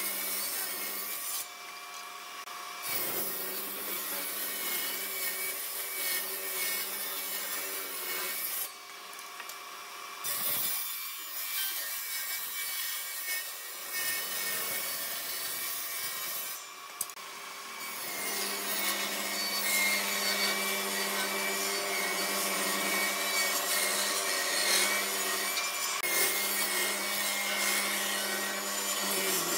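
Table saw running and ripping wooden boards lengthwise: a steady motor hum under the dense noise of the blade cutting through the wood. The cutting noise breaks off briefly three times.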